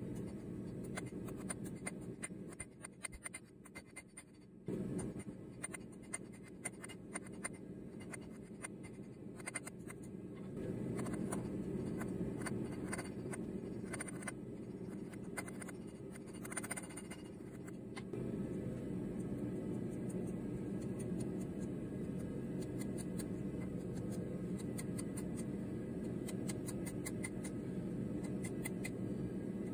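Light, irregular hammer taps on a thin red-hot steel rod being bent over the edge of an anvil, over a steady low hum that fades briefly a few seconds in.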